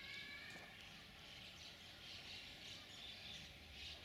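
Quiet outdoor ambience with faint bird calls now and then.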